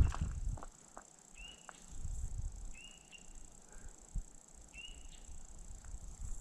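Short, high-pitched animal calls, each rising quickly and then held level for a moment, repeated about every one to two seconds; the hiker wonders whether it is a bird but can't tell. A few faint knocks sound between the calls.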